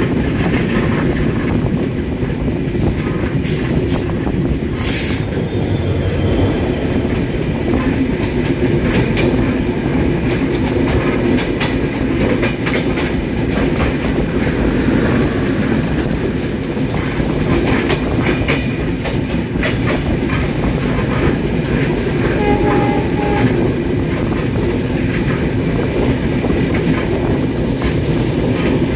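Bangladesh Railway passenger coaches rolling past close by, a steady loud rumble of steel wheels on rail with a constant clickety-clack of the wheels crossing rail joints.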